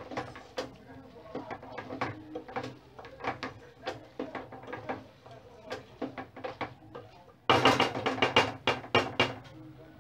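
Wooden spoon stirring beans and rice in a metal pot, clacking and scraping against the pot's sides in irregular knocks, with a louder flurry of rapid clatter near the end.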